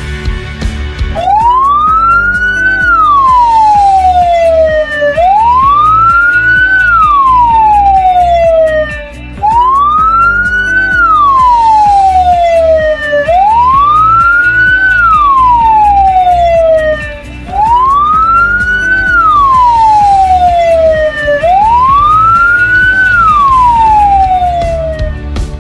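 Ambulance siren sounding a slow wail: six rise-and-fall sweeps, each about four seconds long, climbing quickly and then falling more slowly, with music faintly underneath.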